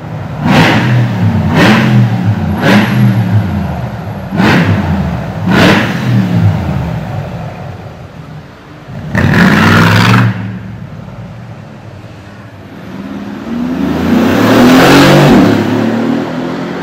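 Mercedes-AMG G-Wagon engine revved in five short, sharp blips, then one longer rev about nine seconds in. Near the end it accelerates, its note climbing and getting louder, then fading.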